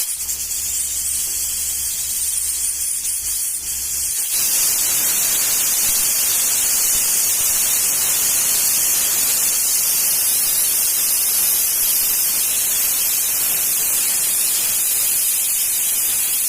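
Pressure cooker venting steam in a steady hiss, which grows louder and fuller about four seconds in and then holds steady.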